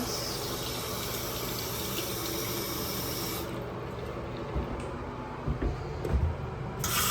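Faucet running into a sink with no stopper, shut off about three and a half seconds in, followed by a few low thumps.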